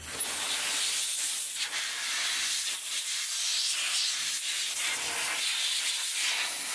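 Compressed air hissing from a blow gun, blowing a freshly rinsed connecting rod dry; a steady hiss that wavers a little in strength.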